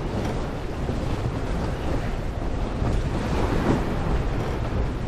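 Strong wind buffeting the microphone and water rushing past the hull of a C&C 30 sailboat sailing fast and heeled hard through choppy waves: a steady rush and rumble.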